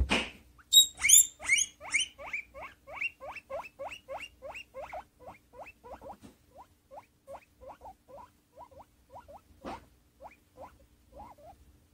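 Guinea pig squeaking impatiently: a long run of short rising squeaks, about three to four a second, that grow fainter and lower toward the end. A knock at the start and another just before ten seconds.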